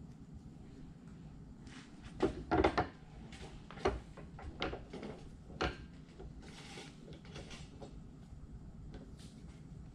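A run of irregular knocks and clunks as U-joint bearing caps are pressed into a Jeep front driveshaft yoke in a bench vise. The loudest are two or three knocks about two to three seconds in, and the last is near the end.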